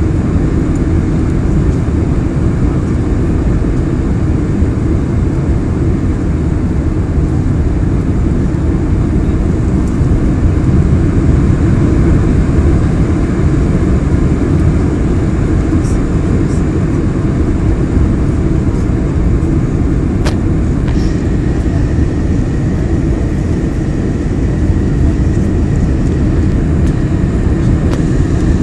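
Steady cabin noise inside a Boeing 747-400 descending to land: the four jet engines and the air rushing past the fuselage make a loud, even, deep noise. A faint steady high tone joins about two-thirds of the way through.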